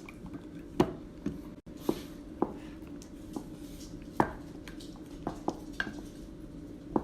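A spoon knocking and clinking against a bowl while slime is stirred, in scattered single taps about once a second over a low steady hum.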